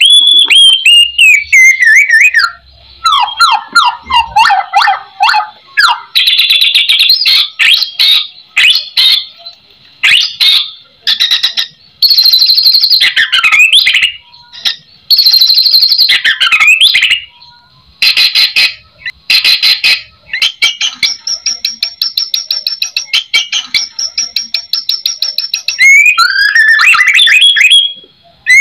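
White-rumped shama (murai batu) singing loudly: a long, varied song packed with mimicked phrases, made of clear whistles that slide down and up, quick trilled runs and a long fast rattling series near the end, broken by short pauses between phrases.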